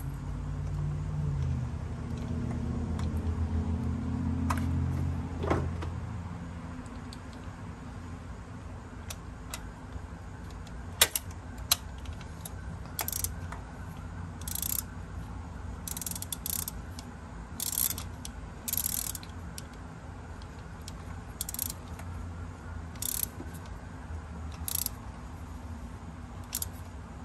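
A ratchet wrench turning a spark plug socket on an extension, clicking in short strokes about once a second through the second half, after two sharp metal clicks a little before halfway.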